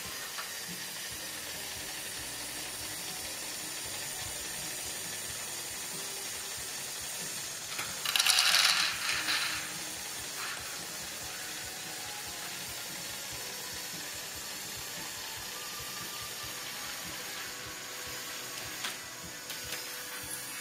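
LEGO Technic Great Ball Contraption crane loader running: its motors and gears whirr steadily. About eight seconds in, plastic balls clatter loudly for a second or so as they tumble through the mechanism. A few light plastic clicks follow near the end.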